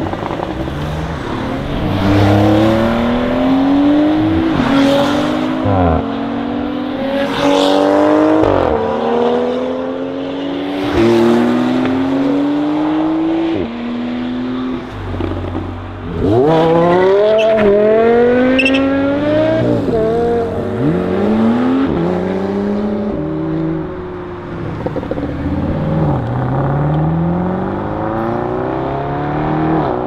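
Performance car engines accelerating hard through the gears, several cars one after another. Each pitch climbs, then drops sharply at every upshift, and some cars pass by.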